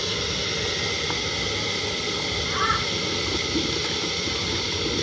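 Steady hissing roar of a burner under a clay pot of boiling pepper, with a short bird call about two and a half seconds in.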